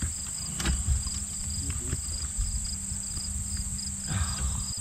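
Wind rumbling on the microphone with a steady low hum underneath, a few light knocks of handling on the boat deck, and a short rustling noise near the end as a bass is lifted in.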